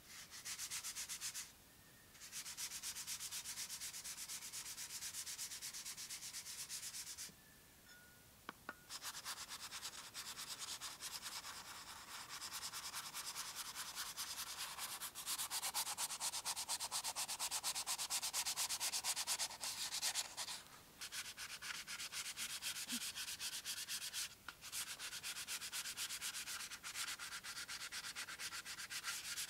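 Rust being sanded by hand off the blade of a vintage cleaver: fast back-and-forth rubbing strokes in long runs, with a few short pauses, loudest for a stretch about halfway through.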